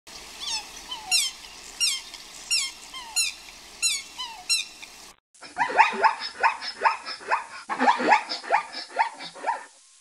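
A high call, falling in pitch, repeated about every two-thirds of a second. After an abrupt cut near the middle comes zebra barking: a rapid run of loud, dog-like yelps, several a second.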